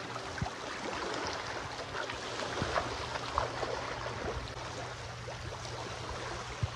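Small waves lapping and gurgling at the shore, with light splashes from feet wading into shallow water, over a faint steady low hum.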